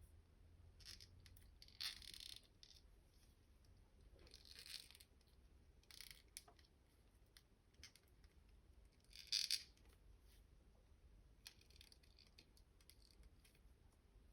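Plastic toy packaging being handled and opened: several short crinkles and rustles, the loudest about nine seconds in, with faint clicks of small pieces between them.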